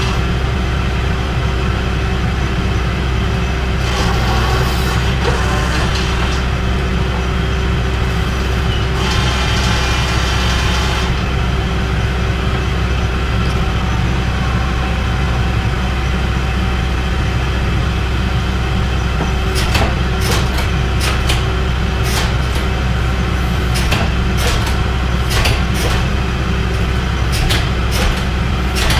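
Hydraulic forging press power unit running steadily with a deep hum. It is broken by two stretches of hiss and, in the last third, a run of sharp metallic clicks and clanks.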